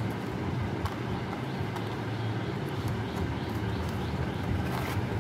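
Steady low rumbling hum in the background, with a few light ticks of cardboard card packaging being handled.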